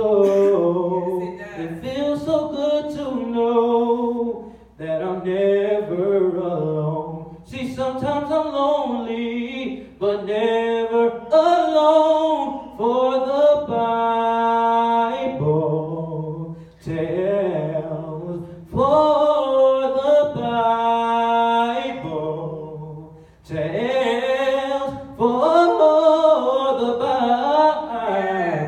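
A man singing solo without accompaniment into a microphone, in phrases of long held notes that slide between pitches, with short breaks for breath.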